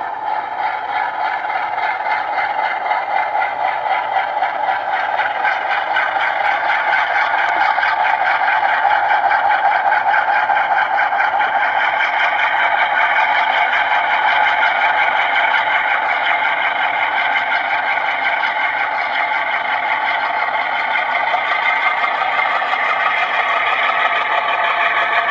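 Sound decoder in an HO-scale CP Rail diesel locomotive playing a diesel engine running under load through its small onboard speaker, thin in the bass. It grows louder over the first several seconds and then holds steady.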